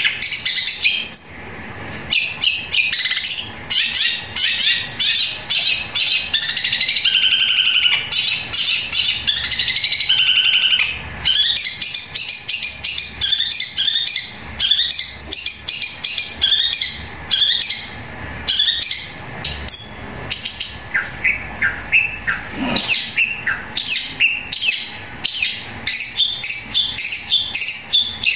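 Long-tailed shrike (cendet) singing a long, loud, almost unbroken run of fast, varied chirps and trills, with mimicked sparrow calls worked into the song.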